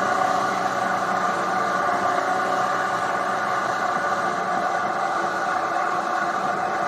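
2018 Triumph Tiger 800 XRt's inline-three engine running at a steady cruising speed, its note holding even, over a constant rush of wind and road noise.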